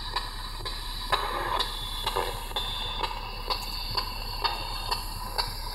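Spirit box (ghost box) radio sweeping through stations: low static hiss broken by soft clicks about twice a second as it steps from channel to channel.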